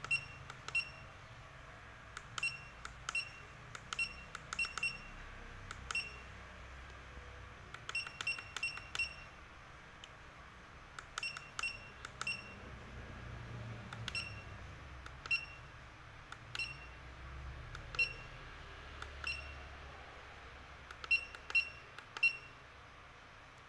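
Keypad beeps from a Hikvision DS-K1T804BMF fingerprint attendance terminal: one short high beep for each key press, coming at irregular intervals and sometimes in quick runs of two to four, as a password and menu choices are keyed in. A faint low hum sits underneath.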